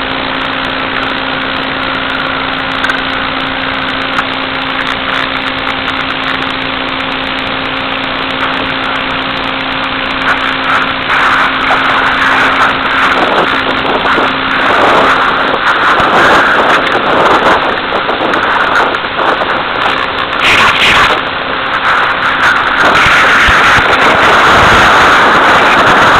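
Steady hiss with a low electrical hum from an analog FPV video link's audio channel. From about ten seconds in, irregular rustling and knocks grow louder over it as the grounded plane is handled.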